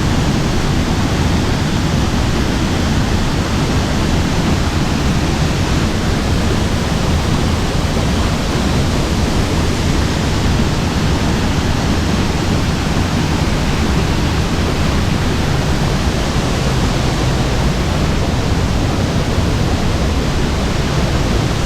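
Sgwd yr Eira waterfall pouring down, a loud steady rush of falling water heard from the path underneath the fall.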